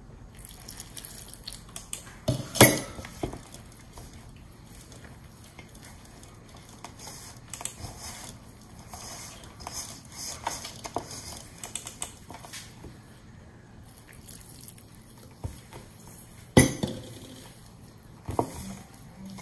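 Hand mixing shaggy flour-and-water dough in a stainless steel bowl: soft rubbing and squishing, scattered small clicks, and two sharp knocks, a few seconds in and again near the end.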